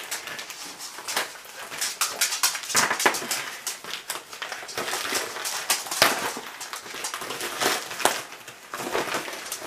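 Packaging being handled and opened by hand: irregular crinkling, rustling and sharp crackles and clicks.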